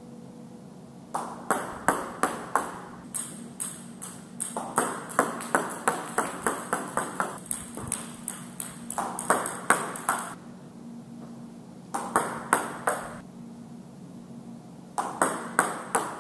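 Table tennis ball bouncing on the table and being struck by the bat during serves: groups of sharp, quick ticks, with the longest run from about three to ten seconds in and shorter clusters near twelve and fifteen seconds, over a faint steady hum.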